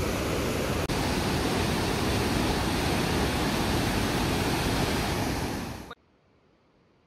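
Waterfall and rushing white-water rapids, a loud, steady roar of water. It cuts off abruptly about six seconds in, leaving near silence.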